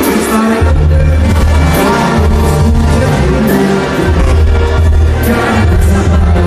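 Live Mexican banda music played loud: a tuba bass line under brass and drums.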